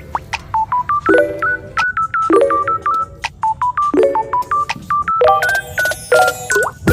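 Background music: a bouncy tune of short, beep-like notes over a low chord that repeats about once a second.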